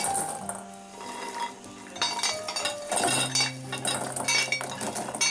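Roasted chestnuts clattering into a stainless steel bowl as they are scooped and then tipped out of a perforated metal roasting pan, with shells and metal clinking against each other. There is a clatter at the start, more about two seconds in, and it is busiest from about three seconds in. Steady background music plays underneath.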